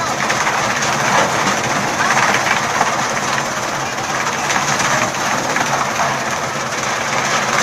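Chaff cutter running with a steady, dense mechanical noise.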